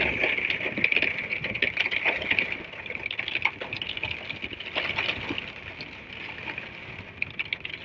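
Heavy monsoon rain pattering in dense, irregular drops, louder for the first couple of seconds and then a little softer.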